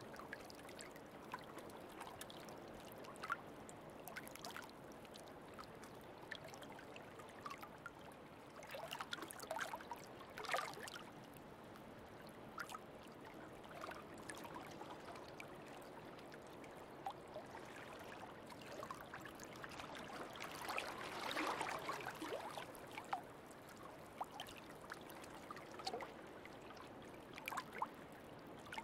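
Faint sea water lapping and trickling around floating sea otters, with scattered small splashes and a slightly louder stretch about two-thirds through.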